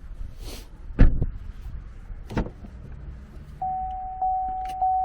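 Knocks inside a car cabin, a sharp one about a second in and another near halfway, then a short motor hum. After that the car's warning chime starts and keeps repeating, a single steady tone about every half second.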